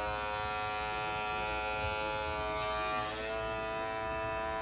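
Chrome Andis Master cordless hair clipper running with a steady loud buzz, its pitch shifting slightly about three seconds in. Owners of these chrome cordless Masters complain that they are way too loud.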